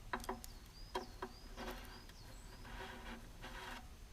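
Faint, repeated high chirps of a small bird, with a few short sharp squeaks or clicks in the first two seconds.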